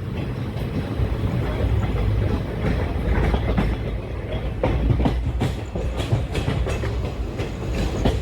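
Indian Railways passenger train running along the track: a steady low rumble with irregular clacks of the wheels over rail joints, coming thicker in the second half.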